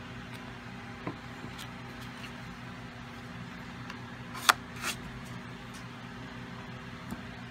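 Plastic scraper card worked across a metal nail-stamping plate, giving two sharp clicks about half a second apart, with a few fainter taps before and after, over a steady low background hum.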